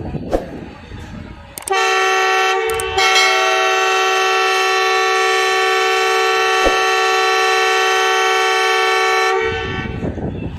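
ZCU-30 diesel-electric locomotive horn sounding one long, loud multi-tone blast of about eight seconds, stepping up in loudness about a second after it starts, then cutting off.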